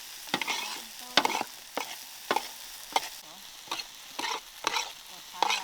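A spatula scraping and striking a frying pan in a steady rhythm, about nine strokes less than a second apart, while food sizzles in hot oil.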